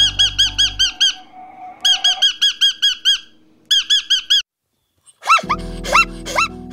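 Rainbow lorikeet calling in quick runs of high, squeaky repeated notes, about seven a second, in three bursts with short pauses between them. After about a second of silence near the end, a zebra's lower barking calls begin.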